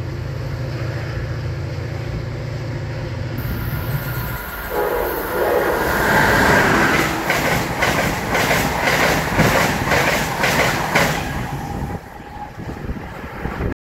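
MBTA diesel commuter locomotive running steadily as it approaches, then after a cut an Amtrak train hauled by an electric locomotive passing at speed, its wheels clicking over the rail joints about twice a second, fading as it recedes.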